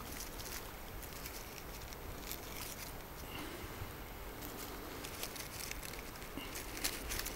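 A hand rustling through dry fallen oak leaves and grass on the forest floor, giving soft, scattered crackles.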